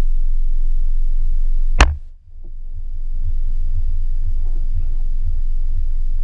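Low steady rumble picked up by a GoPro Hero 4 on a suction-cup mount on the outside of a parked car, broken by one sharp knock on the camera or its mount a little under two seconds in. After the knock the sound drops out almost completely, then fades back up over about a second.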